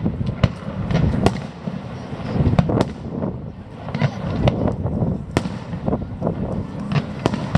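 Fireworks display: an irregular series of bangs and crackles from shells bursting, some sharp reports standing out above the rest.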